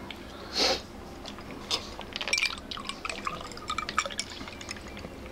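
Orange drink poured from a plastic jug into a glass, splashing and trickling with a run of small clicks as the glass fills. A short breathy hiss comes about half a second in.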